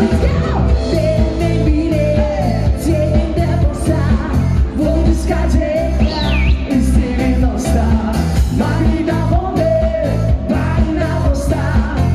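A band playing a 1990s disco-style pop song: a singing voice over a heavy, pulsing bass line and a steady drum beat.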